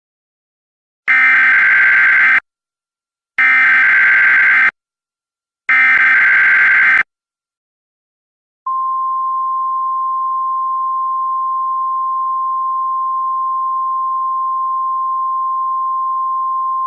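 Emergency Alert System signal for an Amber Alert: three loud buzzing bursts of SAME header data, each about a second and a half long with a second's gap between them, then a single steady one-note attention tone that starts about nine seconds in and holds.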